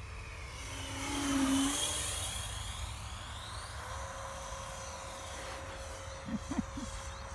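Sebart Mini MB-339 electric ducted-fan model jet flying past: the fan's rushing whine swells to a peak about a second and a half in, then fades as the model moves away. Three short low blips sound near the end.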